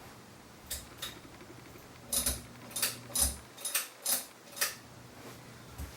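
Ceiling fan pull-chain switch clicking and the chain tapping as it is pulled to select low speed: a run of about nine sharp, irregular clicks, clustered in the middle, over a faint low hum from the fan motor.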